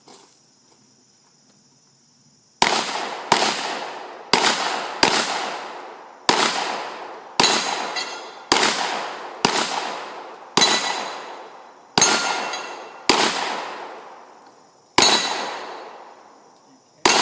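A firearm fired in a string of about a dozen shots at uneven intervals, each with a long echoing decay, starting about two and a half seconds in.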